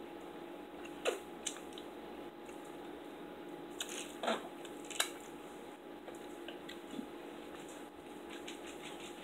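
Quiet eating sounds: soft chewing and small mouth clicks, with a sip through a drinking straw about four seconds in, over a faint steady hum.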